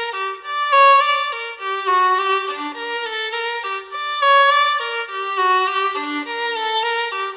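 Background music: a violin playing a melody, one note after another.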